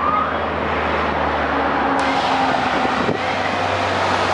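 Motor vehicles driving past along the road: a steady engine hum, with one vehicle passing close about three seconds in, its pitch dropping as it goes by.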